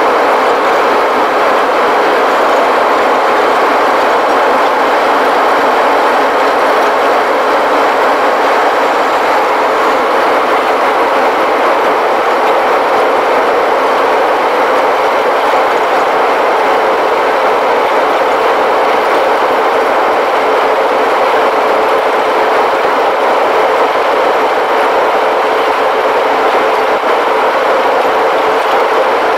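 Jet airliner cabin noise during the climb after takeoff: a steady rush of engines and airflow with a steady hum running through it.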